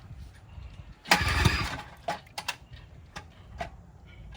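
10 horse two-stroke outboard motor being pull-started: one short burst about a second in that dies away without the motor staying running, then a few light clicks and knocks.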